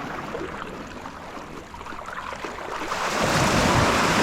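Beach surf washing in the shallows, with wind on the microphone; a wave rushes in and the noise swells about three seconds in.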